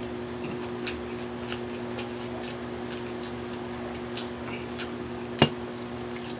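Person chewing pork with small mouth clicks about twice a second, over a steady low hum; one sharp click stands out near the end.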